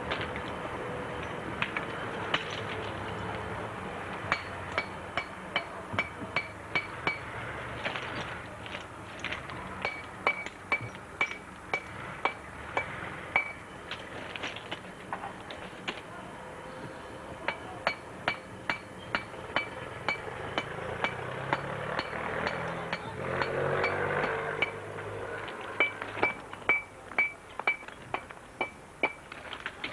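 Repeated hammer blows, each with a short metallic ring, in runs of about two to three strikes a second with pauses between the runs.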